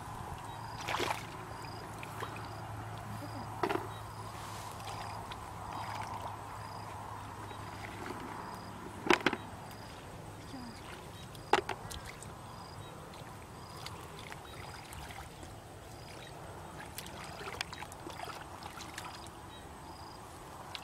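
Water sloshing and splashing as hands grope through a shallow, muddy ditch, with a few sharper splashes, the loudest about nine and eleven and a half seconds in. A faint high chirp repeats steadily behind it.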